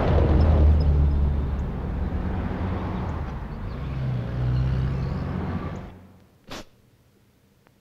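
Road traffic: car engines running and passing close, with a low rumble that swells about a second in and again about four seconds in. At about six seconds it cuts off to a quiet room where a single short sniff is heard.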